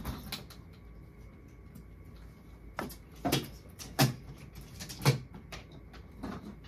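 Knocks and thumps of a hard-shell wheeled suitcase being handled and stood upright on the floor. There is one sharp knock at the start, then a run of five from about three seconds in.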